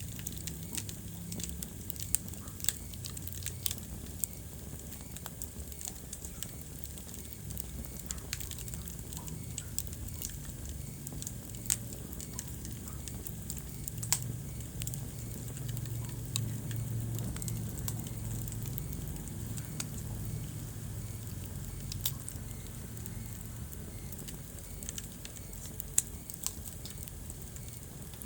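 Wood fire burning in a fireplace: scattered crackles and a few sharper pops over a steady low rumble of the flames.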